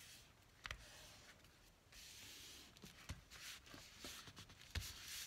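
Faint rustling and rubbing of hands smoothing a glued paper page flat against a journal cover, with a few soft knocks.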